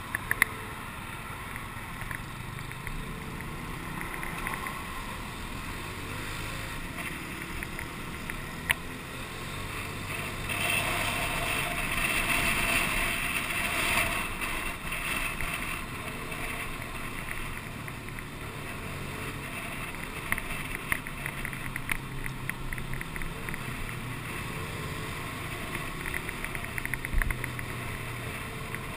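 Small motorcycle running along a road in traffic: a steady engine hum under road and wind noise on the microphone, the wind rising for a few seconds near the middle. A single sharp click about nine seconds in.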